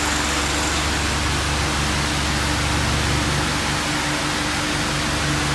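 IndusCom Orbit ceiling fan running at its slowest speed: a steady motor hum with a constant low tone under an even rush of air.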